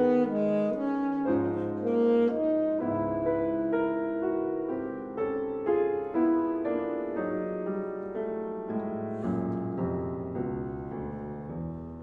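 Saxophone and piano playing a contemporary classical duo: the saxophone moves through a line of held notes over the piano, the music gradually growing softer.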